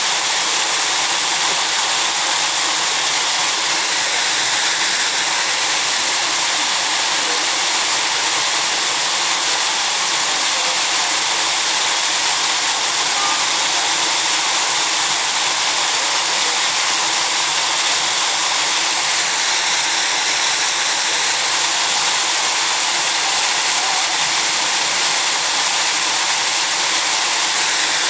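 Steady, unbroken rushing hiss of water pouring into a pool.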